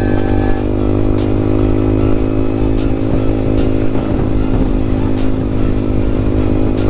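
Yamaha MT15's 155 cc single-cylinder engine running through a loud aftermarket exhaust, held at a nearly steady engine speed while riding, with no real revving.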